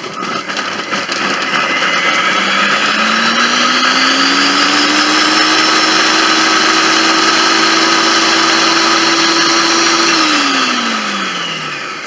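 Monsieur Cuisine Connect kitchen robot blending and chopping tomatoes, onion and garlic at speed 10 on a 10-second timer. The loud motor whine climbs over the first few seconds, holds steady, then winds down about ten seconds in as the timed run ends.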